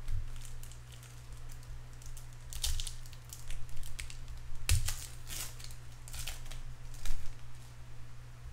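Trading cards being handled and flipped through: scattered small clicks, slides and rustles, with a sharp snap about halfway and a louder one about two-thirds of the way in, over a steady low hum.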